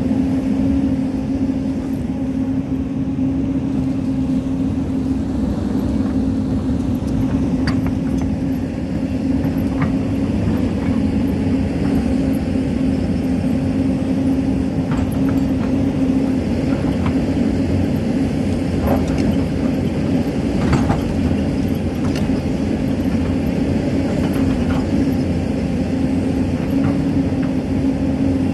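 Hyundai crawler excavator's diesel engine running steadily under load as its bucket digs into earth and rock, with a few scattered knocks and scrapes of stones.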